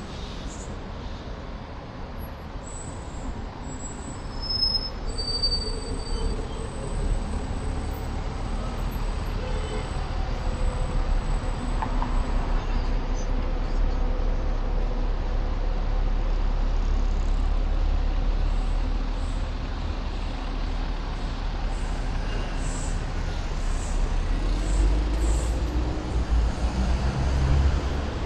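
City street traffic: a steady low rumble of passing vehicles, engines and tyres, growing louder about ten seconds in, with a thin high whine through the first half.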